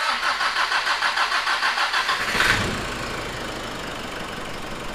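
Nissan Navara D40's rebuilt YD25 2.5-litre four-cylinder turbodiesel being cranked on the starter with a quick pulsing rhythm, catching about two and a half seconds in and settling into a steady idle. This is the engine's first start after a full rebuild, and it fires straight away.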